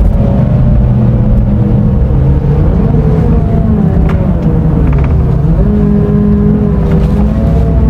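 Scania diesel engine of an Irizar i6S coach running under way. Its note drifts lower, dips sharply about five seconds in, then holds steady.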